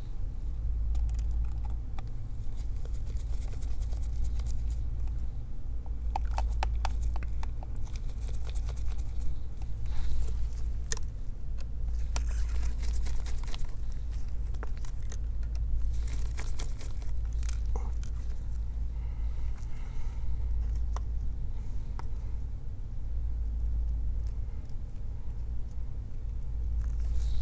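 Small tools and laptop parts being handled on the bench: scattered light clicks, taps and scrapes, in clusters, over a steady low rumble.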